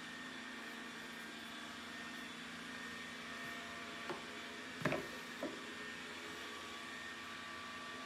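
Plastic Yale battery pack set down on a wooden tabletop: three light knocks close together about halfway through, the middle one the loudest, over a steady background hum and hiss.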